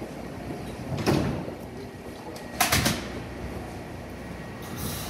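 R160B subway train standing at the platform as its doors slide shut: a knock about a second in, a louder bang near the three-second mark, then a short hiss near the end.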